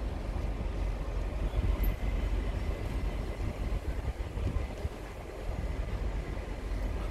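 A long passenger train's coaches rolling past on the rails: a steady low rumble of wheels and running gear.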